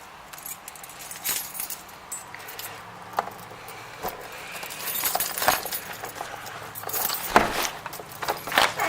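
A bunch of keys jangling, with scattered sharp clicks and knocks.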